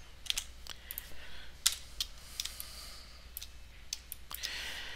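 Computer keyboard and mouse clicking: about a dozen light, irregularly spaced clicks as keys are pressed and the mouse is clicked.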